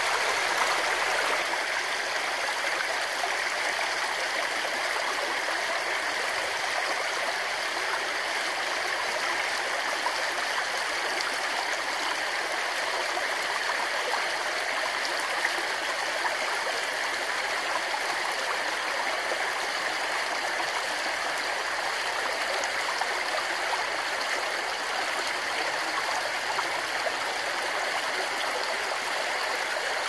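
Shallow mountain runoff swollen by heavy monsoon rain, rushing fast over pebbles and gravel: a steady, even splashing water sound, mostly high and bright with little low rumble.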